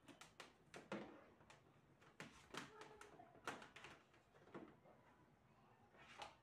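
Faint, irregular clicks and taps of hands handling the plastic top panel and cable of a Symphony Touch 55 air cooler.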